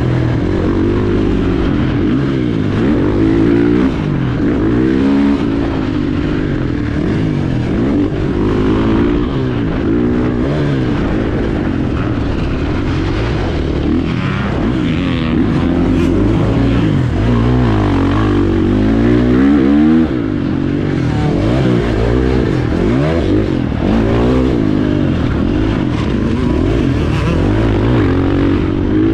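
KTM 450 SX-F's single-cylinder four-stroke engine heard on board while it is ridden hard on a dirt motocross track, its pitch rising and falling over and over as the throttle is opened and shut.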